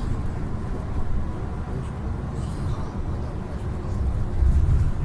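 Steady low rumble of a coach's engine and tyres at motorway speed, heard from inside the cabin, swelling louder briefly near the end.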